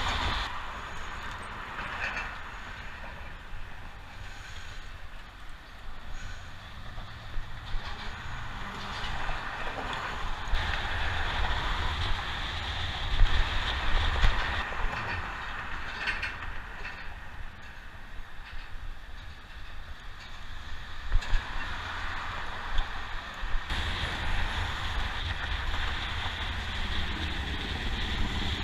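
Steady rumble and hiss of road traffic and wind heard from a moving bicycle, with a few sharp knocks and rattles around the middle.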